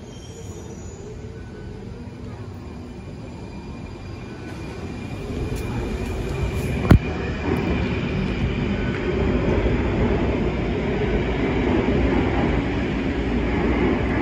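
Alstom Metropolis C830 metro train departing and accelerating into a tunnel. Its rumble grows louder from about five seconds in, with a faint whine that slowly rises in pitch as it picks up speed. A single sharp knock comes about seven seconds in.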